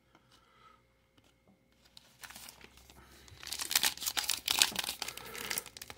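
Foil wrapper of a baseball card pack crinkling and tearing as it is opened, starting about two seconds in and growing louder.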